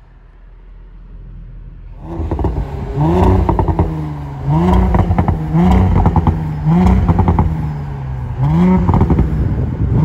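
Exhaust of a 2018 Audi S5 Coupe's turbocharged 3.0-litre V6, heard low at first, then loud from about two seconds in as the engine is blipped repeatedly, about once a second, each rev rising and dropping back.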